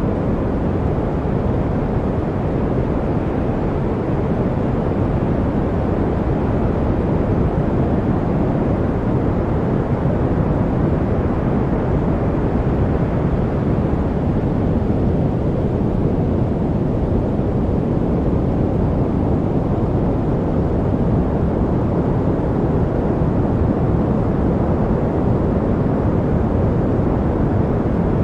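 Steady noise-masking track, deep and rumbling rather than hissy, with most of its strength in the low end like brown noise; it holds even throughout without change.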